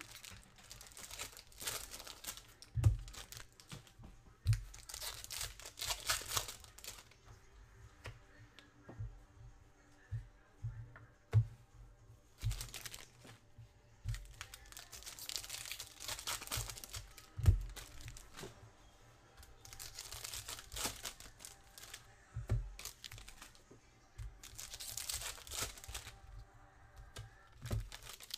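Foil trading-card packs being torn open and crinkled by hand, in repeated bouts of crinkling a second or two long, with a few low thumps in between.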